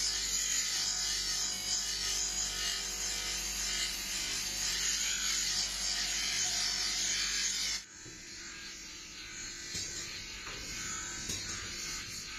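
A small electric power tool's motor running as it works a kukri blade during restoration, with a steady high grinding hiss; about eight seconds in it drops to a quieter, rougher sound with scattered light ticks.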